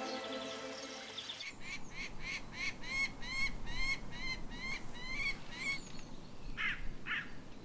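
A series of about a dozen short, rising-and-falling calls, about three a second, then two separate calls near the end. Music fades out over the first second and a half.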